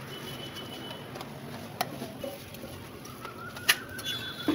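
Metal spatula clicking sharply on a cast dosa griddle twice, the second time loudest, over steady stall noise. Thin high whistling tones sound in the first second and again near the end.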